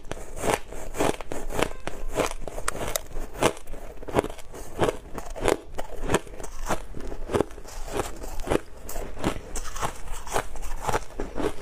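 Close-miked crunching of snow-like frozen ice (freezer frost) being bitten and chewed, a crisp crunch every half second or so.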